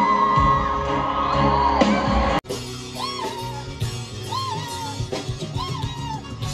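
Live female pop vocals over band accompaniment: a woman holds a long high head-voice note around E-flat 6. After a sudden cut about two seconds in, another woman sings a string of short high notes around C-sharp 6, each rising, holding briefly and falling back.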